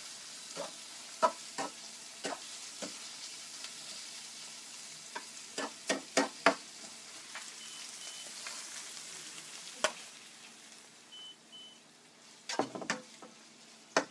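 Seafood stir-frying in a frying pan: a steady sizzle with irregular clacks and scrapes of a metal spatula against the pan. The sizzle dies down after about ten seconds, and a quick cluster of spatula knocks comes near the end.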